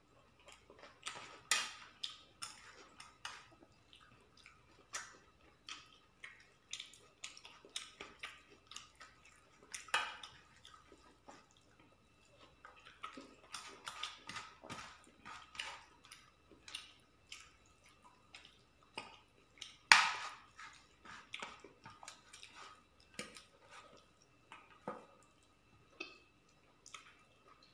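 Eating rice and chicken curry by hand from a steel plate: fingers squishing and mixing the rice, wet chewing and smacking, and light taps on the plate, in an irregular string of short sounds. The sharpest comes about twenty seconds in.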